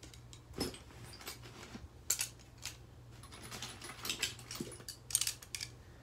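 Light metallic clinking and jingling: a dozen or so short, sharp clinks at uneven intervals, like small metal objects knocking together, over a low steady hum.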